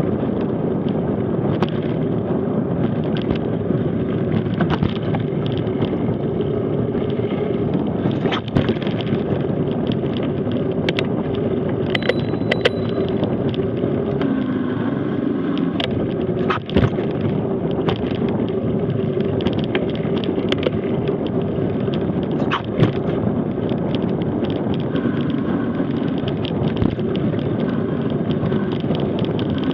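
Mountain bike coasting fast down a gravel road: a steady rush of wind on the microphone and tyres rolling over loose gravel, broken by a few sharp knocks and rattles as the bike hits bumps.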